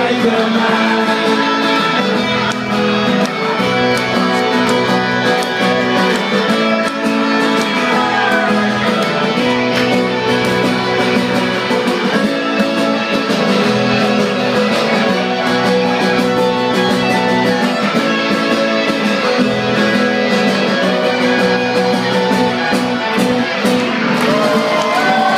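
Live rock band playing a guitar-led instrumental passage with no vocals: strummed and plucked electric guitars over bass and drums, steady and loud.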